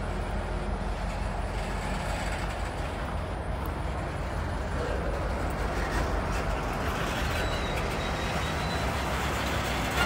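Slow freight train of boxcars rolling along an industrial spur: a steady low rumble, with a faint high tone joining about seven seconds in.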